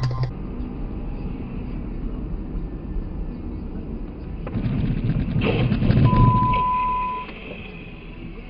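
Vehicle road noise, growing louder and rougher for about two seconds around five seconds in, with a steady beep lasting about a second near six seconds in.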